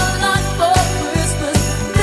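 Christmas pop music with jingle bells over a steady beat of about two and a half beats a second.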